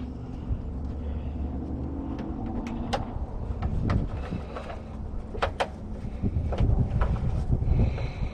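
Wind buffeting the microphone as a steady low rumble, with scattered sharp clicks and taps.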